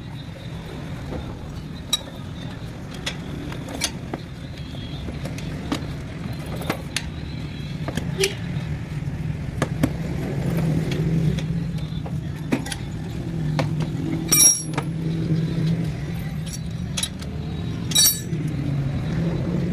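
Puncture-repair tools clicking and tapping, with two louder ringing metal clinks near the end, over a steady low engine-like hum.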